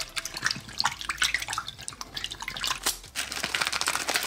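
A hand swishing and splashing in a bowl of water, with irregular small splashes and drips, stirring a water-soluble toy capsule so that it dissolves.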